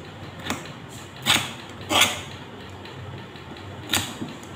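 Glass cutter scoring a round mineral-glass spectacle lens by hand, four short scratching strokes, the loudest at about one and two seconds in and again near the end.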